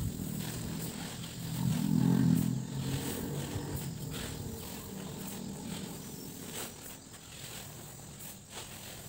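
Dried paddy rice being scooped off a tarp and poured into a sack, with scattered short rustles and clicks over a steady background of insects. A louder low-pitched hum swells for about a second around two seconds in.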